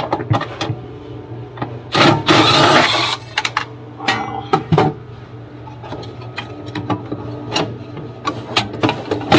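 Cordless power driver running in short spurts as it backs out sheet-metal screws, with clicks and knocks of thin aluminium panels being handled, over a steady low hum.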